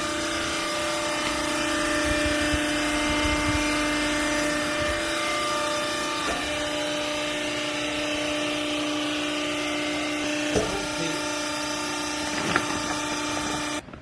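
Hydraulic clothing baler's pump and motor running with a steady whine that shifts slightly in pitch about halfway, with two sharp knocks in the second half. It cuts off suddenly near the end.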